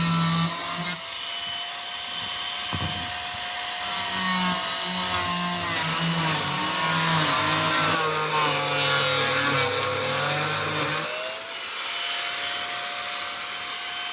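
Handheld power saw cutting along the roof edge. Its motor whine sags in pitch under load for a few seconds, then rises again, and the heavy cutting noise drops away about three-quarters of the way through, leaving the blade spinning.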